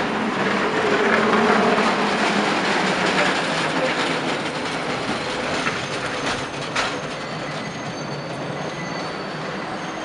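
San Francisco cable car rolling on its street track: a loud, noisy rumble of wheels on rail, loudest in the first couple of seconds. A few sharp clanks come about two-thirds of the way in, then thin, high metal squeals from the wheels.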